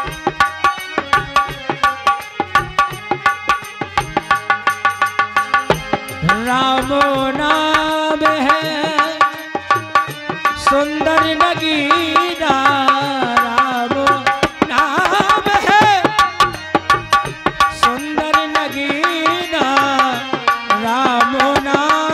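Folk music with a hand drum beating a quick, steady rhythm; about six seconds in, a held melody line with a wavering pitch joins it in long phrases.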